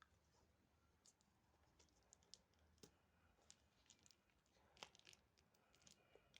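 Faint, scattered small clicks and light taps of objects being handled during unboxing, irregular and spaced out, with a slightly stronger click a little before the five-second mark.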